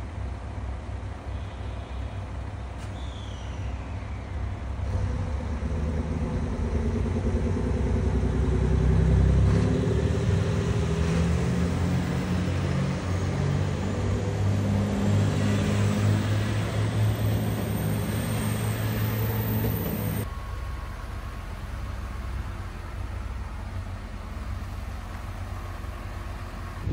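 Diesel railcar engines of a JR Shikoku Anpanman train revving up as the train pulls out of the platform, growing louder for several seconds and then holding steady. About three-quarters of the way through it cuts off suddenly to a quieter outdoor wind noise.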